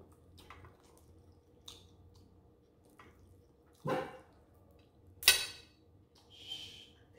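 A person eating close to the microphone: scattered soft, wet chewing and mouth clicks, with a louder, deeper mouth sound about four seconds in and a sharp click just after five seconds.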